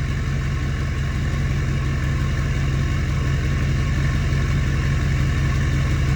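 Ford 6.4 Powerstroke V8 turbo diesel idling steadily at about 780 RPM.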